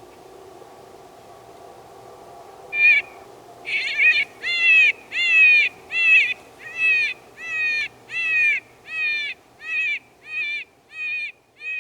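Electronic predator call playing an animal distress sound: a series of about fourteen short, high cries, each sliding down in pitch, about one and a half a second, starting about three seconds in and growing fainter toward the end.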